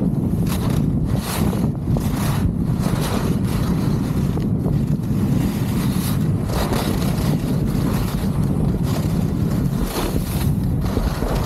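Wind buffeting the camera's microphone as a skier runs downhill, a steady low rumble, with the skis repeatedly hissing and scraping over the groomed snow.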